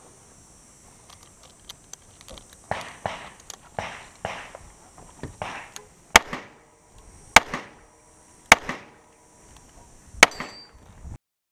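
A handgun fired four times from inside a car's cabin, with sharp cracks spaced about a second apart and a slightly longer gap before the last. Before the shots come several quieter, duller knocks and thumps.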